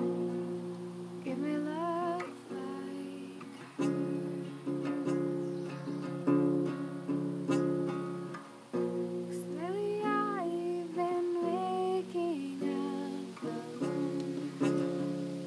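Acoustic guitar strummed in chords that change every second or so. A voice sings along above the guitar twice, about a second in and again around ten seconds in.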